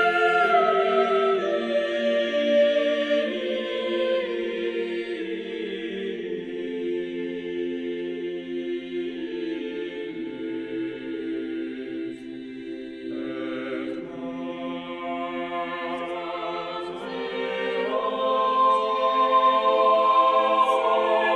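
Choral music: voices holding long, slow chords that shift gradually, softer midway and growing louder near the end.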